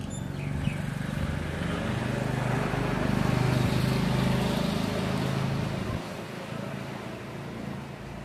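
A motor vehicle's engine hum, swelling to a peak in the middle and dropping away about six seconds in, as of a vehicle passing by.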